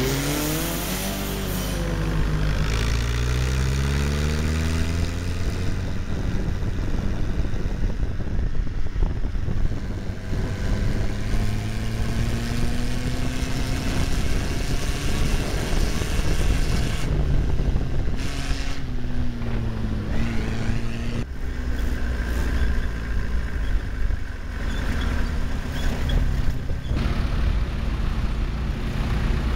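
Tractor engine running as the tractor drives along, its pitch climbing in the first few seconds and rising and falling again later as the engine speeds up and slows.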